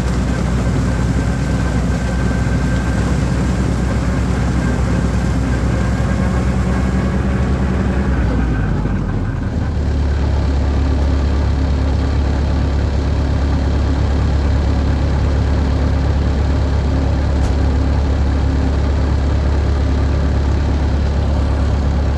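Holder orchard tractor's diesel engine running steadily. About nine seconds in, its note drops and it settles into a deeper, steady hum.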